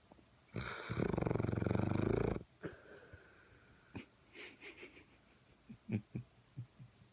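Sleeping pitbull snoring: one loud, rattling snore lasting about two seconds, then softer breathing and several short snuffling sounds.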